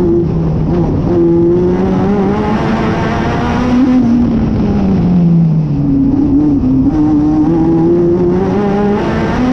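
National Hotrod race car engine heard from inside the car, running hard under racing throttle. The revs climb, fall away about four seconds in as the throttle comes off, then climb again.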